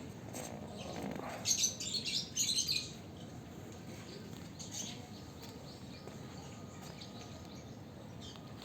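Lovebirds chirping: a quick, loud run of high chirps about one and a half seconds in, then scattered fainter chirps.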